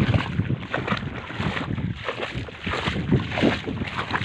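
Steps sloshing through shallow water and mud, coming in uneven surges, with wind buffeting the microphone.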